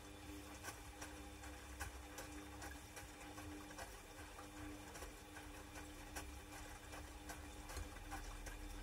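Bosch Classixx 6 front-loading washing machine in its wash phase, the drum turning a sudsy, waterlogged pillow: a faint steady motor hum with irregular light clicks and patter of wet washing and water.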